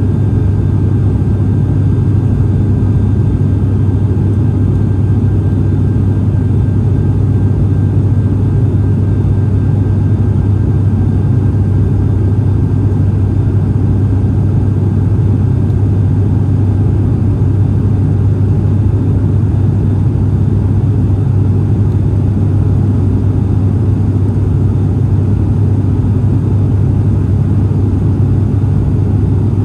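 Steady drone of a turboprop airliner in flight, heard inside the cabin: a strong low hum from the engines and propellers with a faint thin tone above it, unchanging throughout.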